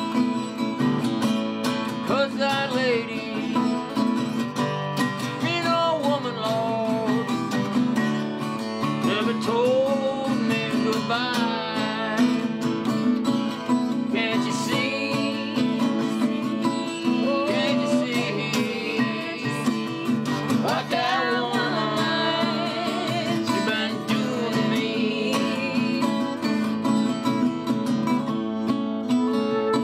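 Acoustic guitar strumming a folk song with singing and a flute melody over it.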